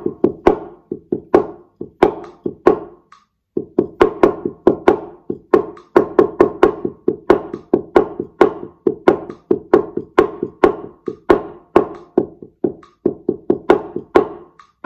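Wooden taiko sticks (bachi) playing a shime daiko rhythm on a towel-covered drum: quick runs of alternating-hand hits, each with a short dull ring, with a brief break about three seconds in before the strokes go on steadily.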